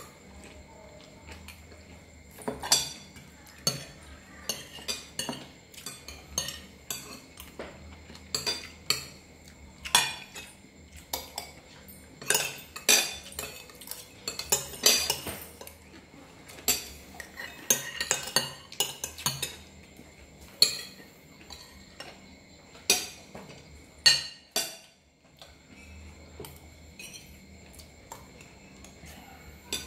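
Metal spoons clinking and scraping against plates as food is scooped up, in an irregular run of sharp clinks that pauses briefly near the end.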